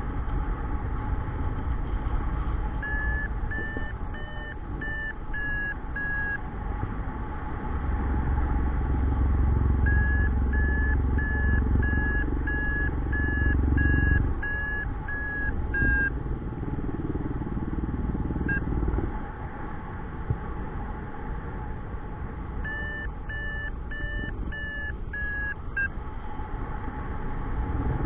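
Paragliding variometer beeping in runs of short, evenly spaced tones, the signal that the glider is climbing in rising air, over a steady rush of wind on the microphone. The beeping comes in three spells, and the wind is loudest through the middle third.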